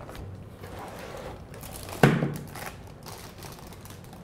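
Clear plastic bag wrapped around a rack-mount audio interface crinkling as the unit is handled, with a single thump about two seconds in as it is set down on the table.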